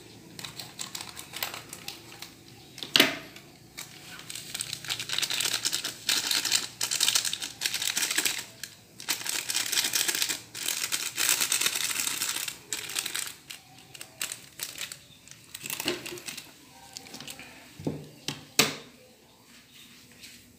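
A plastic seasoning sachet is snipped open with scissors, with a sharp click about three seconds in. Then comes several seconds of crinkling as the sachet is squeezed and its powder shaken into flour in a plastic bowl, followed by a few scattered knocks.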